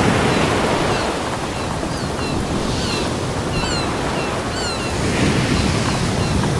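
Ocean waves breaking and washing onto a beach: a steady rushing surf with slow swells in loudness. A few short high chirps sound in the middle.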